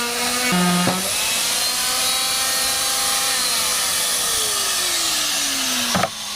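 Electric power saw cutting through a piece of wood: the motor runs at a steady pitch over the hiss of the cut. About four seconds in, the motor's pitch falls as it winds down, and a sharp click comes near the end.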